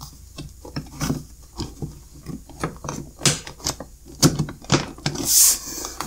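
Plastic front panel of a CyberPower UPS being pushed onto the case and slid into its hooks: an irregular run of plastic clicks and knocks, with a brief scraping rub near the end.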